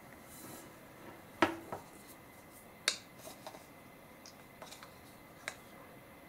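Hot Sand Solo single-slice sandwich maker being closed over the bread and handled: a series of light metal clicks and knocks. The loudest comes about a second and a half in, with a brief ring, and a sharp click follows near three seconds.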